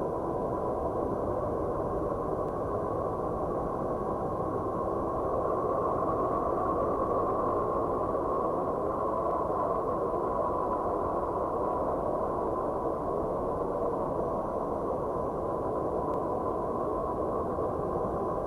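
A steady, dark droning noise presented as the sound of the planet Saturn, with no bright highs, a faint hum near the top of its range and a slow swirling movement in the middle.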